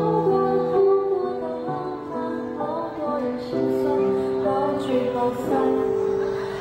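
A boy singing a slow, tender Mandarin pop ballad into a handheld microphone, holding long notes over soft instrumental accompaniment.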